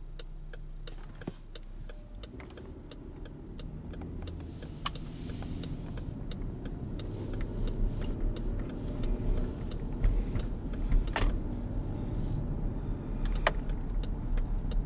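Car turn signal ticking steadily, about two to three clicks a second, inside the cabin, while engine and road noise build as the car gets moving.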